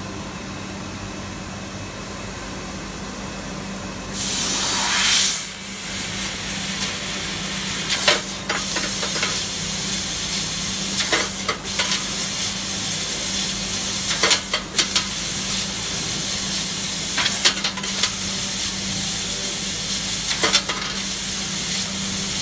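Fiber laser tube cutting machine cutting a metal pipe: about four seconds in, a sudden loud blast of hiss with a brief falling whoosh, then a continuous cutting hiss with frequent short sharp crackles. A steady machine hum runs underneath.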